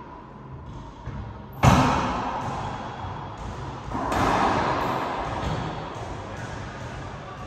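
Racquetball shots in an enclosed court: a loud, sharp smack of racquet on ball about one and a half seconds in, echoing off the walls, then a second, softer shot about four seconds in that also rings out.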